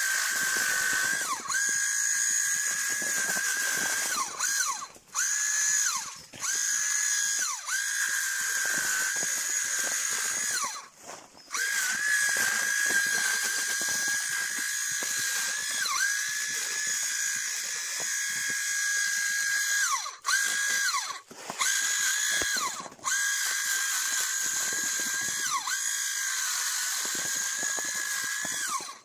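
Handheld electric coffee harvester's small motor whining steadily. It stops and restarts about seven times, the whine sliding down as it runs down and climbing back as it spins up.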